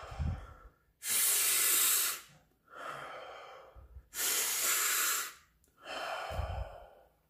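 A man's deep, forceful breathing in a breathing exercise: two loud inhales about a second long, each answered by a quieter exhale with a puff of air on the microphone, ending on a third exhale.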